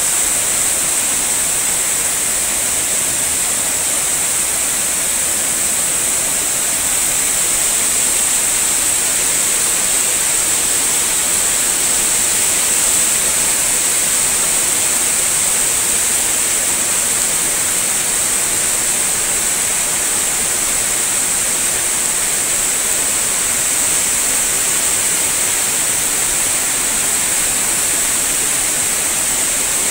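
Fast-flowing floodwater rushing and churning, a steady hiss of water with no let-up.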